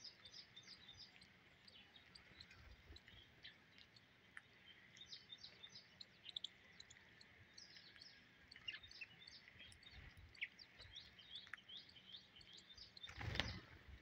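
A flock of house sparrows chirping faintly, many short high chirps overlapping throughout. Near the end comes a brief, louder whoosh.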